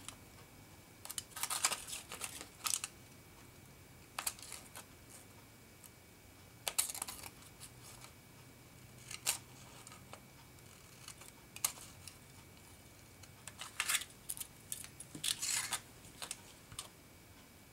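Scissors snipping through aluminium foil in short, crisp cuts that come in irregular clusters, with some crinkling of the foil.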